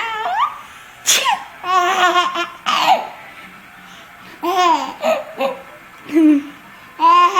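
Baby laughing in repeated short, high-pitched bursts of giggles and squeals, set off by an adult's fake sneezes.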